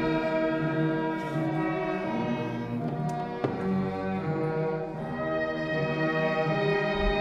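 Orchestral string music: violins and cellos holding long, sustained chords that shift slowly.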